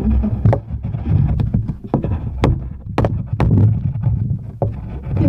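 Drawing on paper on a tabletop: a run of sharp, irregular taps and knocks of pens on the paper and table, over a low rumble.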